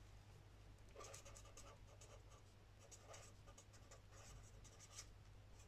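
Faint scratching of a pen writing on a page of a spiral-bound paper notebook, in a few short strokes.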